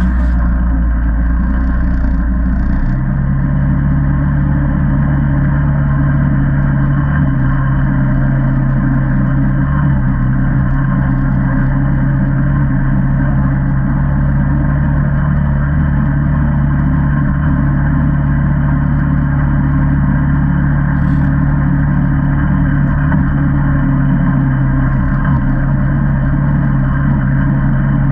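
Single-cylinder four-stroke ATV engine running steadily as the quad rides along, its tone shifting about three seconds in. Brief scratching near the start as a finger touches the camera.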